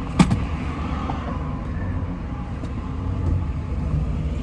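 Car being driven, heard from inside the cabin: a steady low rumble of road and engine noise, with one sharp click just after the start.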